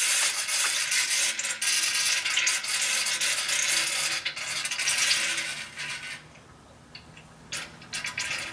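Electric drill spinning a scrap oil pump with a welded-on shaft, pre-lubing a Cummins diesel engine by pushing oil up to the rockers. The drill runs steadily and stops about five and a half seconds in, followed by a few light metallic clicks near the end.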